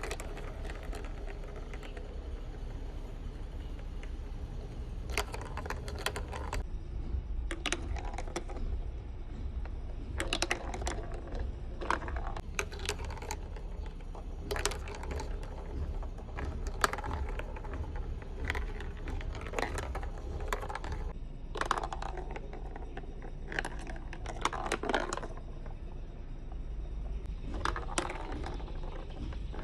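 Marbles clattering down a toy marble run: rapid clicking and rattling that comes in bursts of one to three seconds, with short quiet gaps between runs, over a steady low hum.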